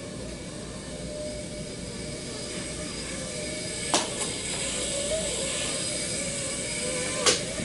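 Small FPV drone's motors buzzing, the pitch wavering as it flies, over a steady hiss. Two sharp knocks, about four seconds in and near the end, are the drone bumping into something.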